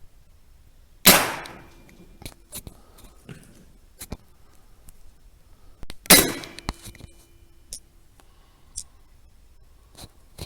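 Two rifle shots about five seconds apart, each with a short ring-off, with several lighter clicks and knocks in between.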